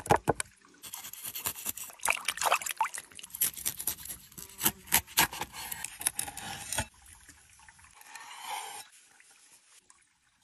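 A raw fish is set down on a wooden cutting board with a sharp slap, then cleaned and cut: a steady run of rasping scrapes and sharp clicks that stops about seven seconds in, followed by quieter rubbing as the raw fillets are handled.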